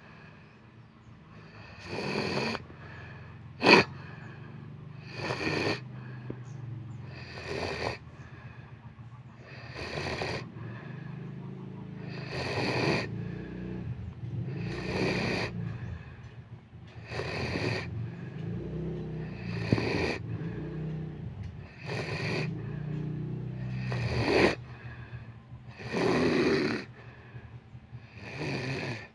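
A person snoring in their sleep, one snore about every two and a half seconds, with a single sharp, loud sound about four seconds in.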